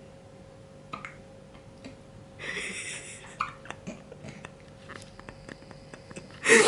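Newborn baby hiccuping: a few short, sudden sounds with quiet between, the loudest one near the end.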